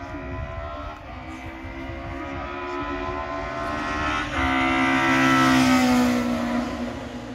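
A hillclimb racing car's engine running hard up the course. It grows steadily louder as it approaches, with an abrupt change about four seconds in, then drops a little in pitch and fades as it goes past.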